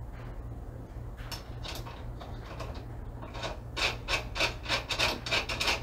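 Ratchet wrench working a nut down on a battery busbar stud, in short rasping strokes that begin about a second in and settle into about three a second in the second half. A low steady hum runs underneath.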